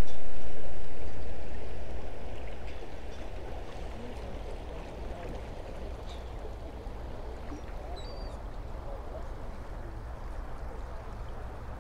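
Steady rushing noise of fast-flowing channel water mixed with wind on the microphone. It is loud at first and eases off over the first few seconds.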